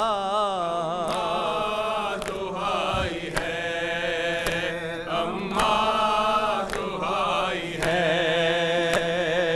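Male noha reciter singing a mourning lament into a microphone, drawing out long wavering held notes with no clear words, over a steady low tone.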